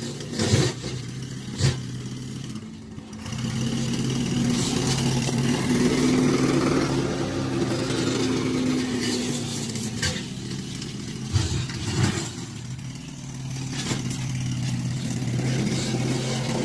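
Remote-controlled lawn mower and mulcher running with a steady motor hum. Its level dips around three seconds in and again after about twelve seconds, and a few sharp knocks come through.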